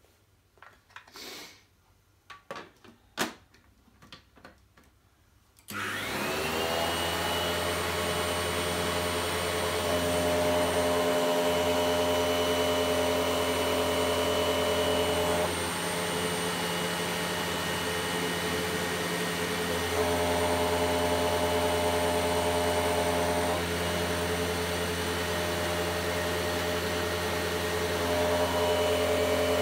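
A few handling knocks, then a vacuum cleaner fitted with a cloth dust bag switches on about six seconds in and runs steadily with a motor whine, its sound shifting slightly twice in the middle. It is giving weak airflow, for a reason the owner cannot yet find.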